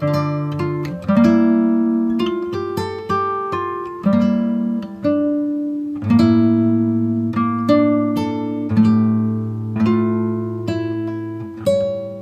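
Background music: a plucked acoustic guitar playing a slow melody over chords, the notes ringing and dying away.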